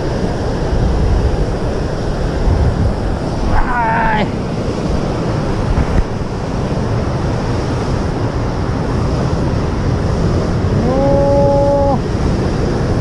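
Ocean surf breaking and washing over sea rocks, a steady rushing noise with wind buffeting the microphone. A short wavering voice-like sound comes about four seconds in, and a steady hum-like tone is held for about a second near the end.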